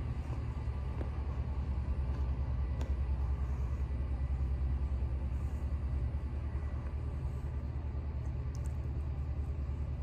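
A steady low rumble that flutters quickly and carries on without a break.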